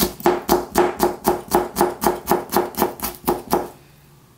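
Onion being chopped finely with a ceramic knife on a plastic cutting board: quick, even knocks of the blade on the board, about four a second, stopping about three and a half seconds in.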